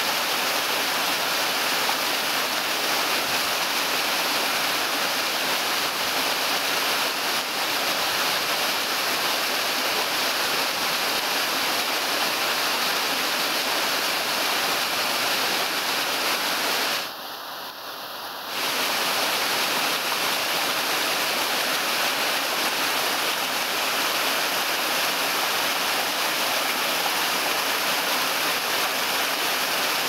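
Small waterfall pouring onto rocks: a steady, even rush of falling and splashing water. It drops noticeably quieter for about a second and a half around the middle, then returns to full.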